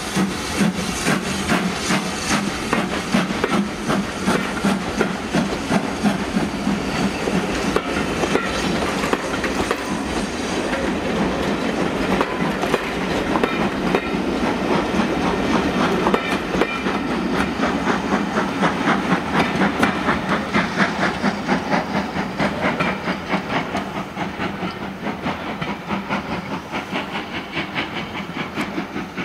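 Passenger coaches of a departing steam-hauled train rolling past, their wheels clicking in a steady rhythm over the rail joints, growing fainter as the train draws away near the end.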